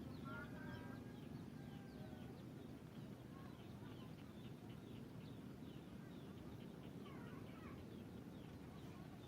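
Many small birds chirping and twittering faintly, with short repeated chirps all through and a few brief whistles in the first second, over a steady low background rumble.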